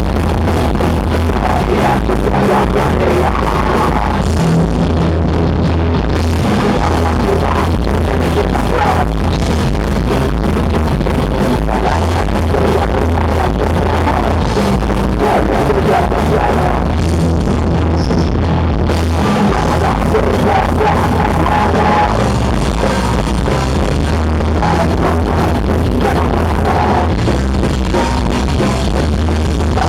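Punk band playing live: loud, dense rock with a drum kit, running without a break.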